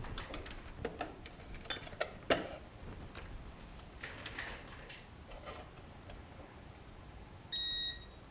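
Light clicks and taps of probes and small tools being handled while a voltage is measured on a phone board, then near the end one short, high electronic beep lasting about half a second.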